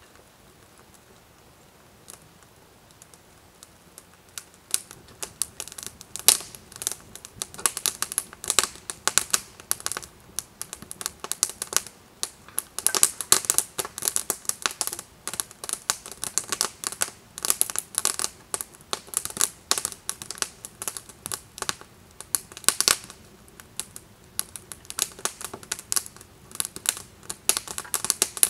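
Campfire of split-wood kindling crackling and popping with rapid, irregular snaps that start sparse and grow dense about four to five seconds in as the flames catch and build.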